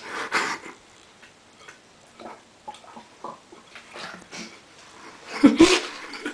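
Someone drinking lemon juice straight from a plastic bottle: faint swallowing and small clicks of the bottle, then a loud, short vocal reaction about five and a half seconds in as the sour juice hits.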